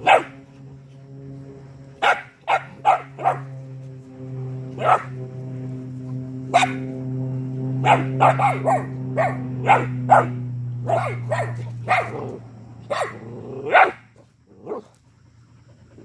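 Mixed-breed working-dog puppies barking in short, high, sharp yaps, singly and in quick runs of three or four, at a rooster. A steady low hum runs underneath and fades out about twelve seconds in.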